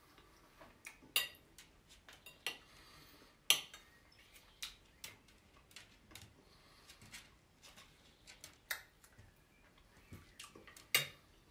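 Metal knife and fork clinking and scraping on a white plate as food is cut, in scattered sharp clinks. The loudest come about three and a half seconds in and just before the end.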